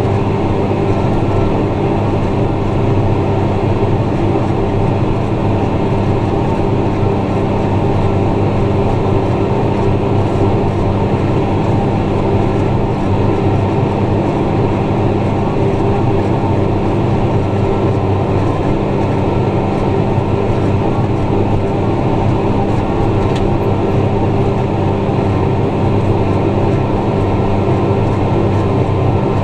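Tractor engine running steadily under load while pulling a ripper through the field, a constant loud drone with no change in speed.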